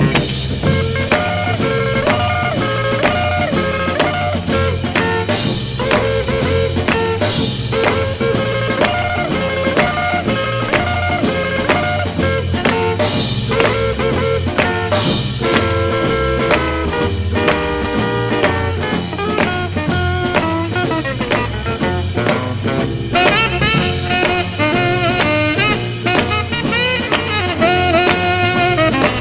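Instrumental passage of a 1950s–60s-style rock and roll or swing record: drum kit keeping a steady beat under a horn-led melody, with a wavering, vibrato lead line coming in about three quarters of the way through.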